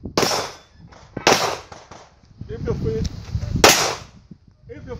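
Three handgun shots fired on an IPSC stage: the first just after the start, the next about a second later, and the last after a gap of over two seconds.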